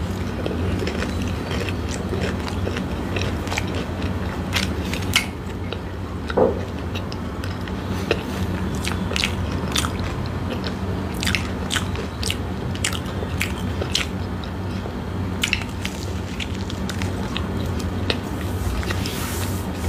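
Close-miked biting and chewing of fried samosas, the crisp pastry crunching in short, irregular crackles over a steady low hum.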